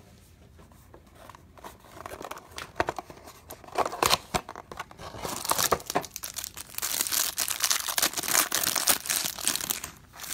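Clear plastic wrapper of a pack of Absolute football cards being crinkled and torn open by hand. It starts with a few scattered crackles, and from about halfway through there is dense, loud crinkling and tearing.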